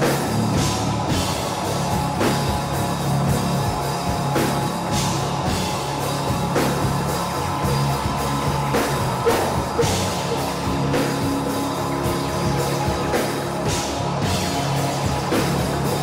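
Rock band playing live: guitar over a drum kit, with cymbal hits recurring every second or two in a dense, loud wash of sound.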